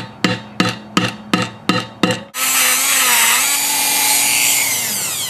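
About eight sharp hammer taps on a screwdriver set against a broken snap ring in a trailer hub, each knock ringing briefly off the metal. Then a Dremel rotary tool starts up and grinds steadily, cutting a notch in the snap ring so that it can be pried out, and near the end it begins to wind down.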